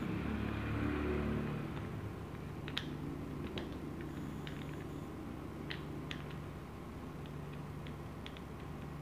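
Light clicks and taps of metal parts as a Shimano Ultegra 14000 spinning reel's body is handled and a small shaft is fitted into it, over a steady low hum. A low rumble fills the first second and a half.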